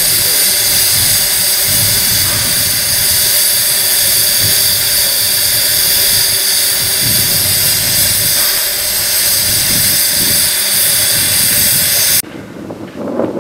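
Loud, steady hiss of steam escaping from the steam motor coach No. 1 ('Coffee Pot') locomotive, cutting off suddenly near the end.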